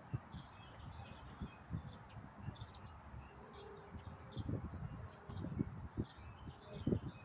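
Small birds chirping again and again over a low rumble of wind on the microphone, with low thuds that come more often and louder toward the end.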